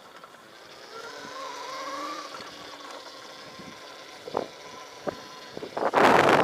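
Faint vehicle sound with a steady whine that rises slightly about a second in, two short clicks, then a loud rush of noise lasting under a second near the end.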